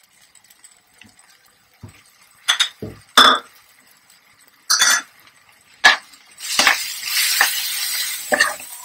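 A few sharp clinks and knocks of utensils against a non-stick frying pan, then, from about six and a half seconds in, a steady sizzle as onion-tomato masala is stirred in hot oil with a plastic spatula.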